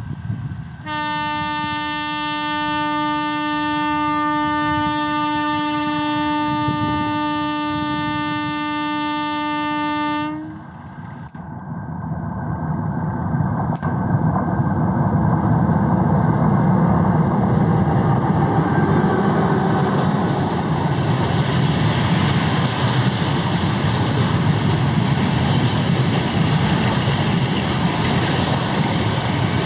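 Metre-gauge diesel locomotive 2405 sounding one long, steady horn blast of about nine seconds. Then the locomotive and its coaches run past close by, with rumble and wheel clatter building up and staying loud.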